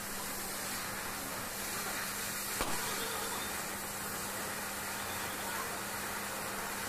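Oxy-fuel cutting torch hissing steadily as it cuts through a steel leaf spring, with a single click about two and a half seconds in.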